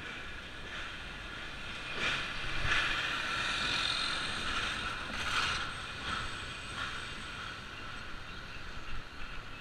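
Street noise heard from a moving bicycle: steady road and mechanical noise with a few faint steady whining tones, swelling louder from about two to six seconds in as a red box truck is alongside.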